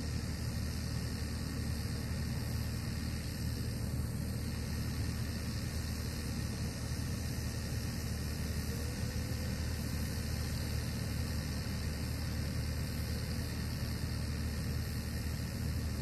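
Engine idling steadily: a low, even hum with a faint hiss over it and no revving or load.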